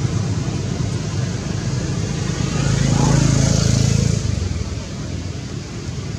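A motor vehicle's low engine rumble, swelling about three seconds in and then fading away.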